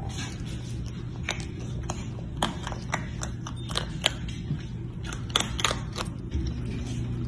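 A baby raccoon chewing a snack: sharp, irregular crunching clicks over a steady low hum.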